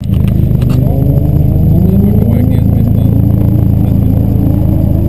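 Nissan 240SX's SR20DET turbocharged four-cylinder engine running steadily at a loud idle, its pitch slowly creeping up. A few light clicks in the first second.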